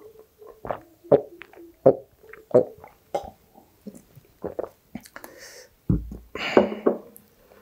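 A person gulping a grape soft drink from a glass tumbler, about five swallows roughly two-thirds of a second apart. Near the end the glass is set down on a wooden table with a low thud, followed by a breathy exhale.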